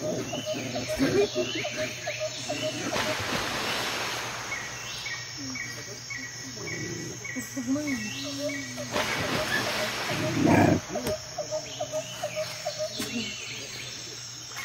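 Puppies growling at each other as they play-fight, over a background of regularly chirping insects, with one louder burst about ten seconds in.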